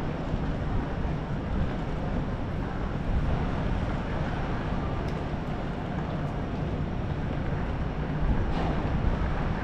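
Steady rumble of city street traffic, with some wind noise on the microphone.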